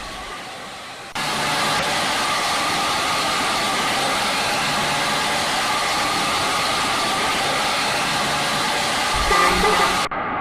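Tour bus running, a loud steady rush of engine and road noise that cuts in suddenly about a second in. Near the end comes a brief burst of notes from its Basuri telolet horn.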